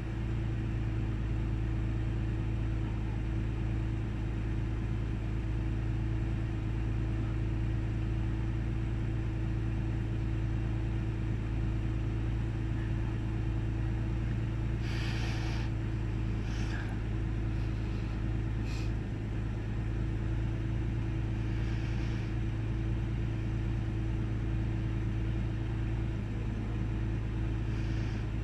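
1998 Ford Taurus SE's OHV V6 idling with the hood open, a steady low hum with a few brief higher noises about halfway through. The engine has an intermittent rough idle, with sputters, misses and small RPM swings, that the owner has not yet diagnosed.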